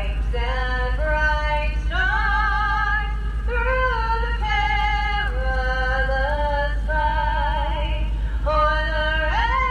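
A solo voice singing a national anthem, holding long notes with a wavering vibrato and sliding between them, over a steady low hum.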